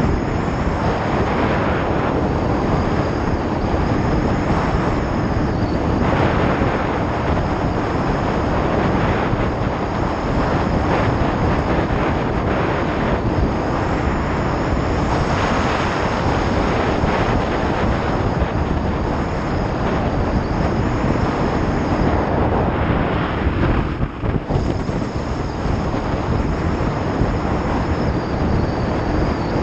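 Heavy wind rushing over the microphone of a Yamaha XT-225 motorcycle at highway speed, with its single-cylinder four-stroke engine running steadily beneath the wind.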